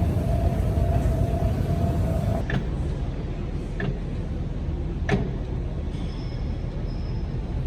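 Steady low rumble of a vehicle in motion, with three sharp clicks about a second apart in the middle.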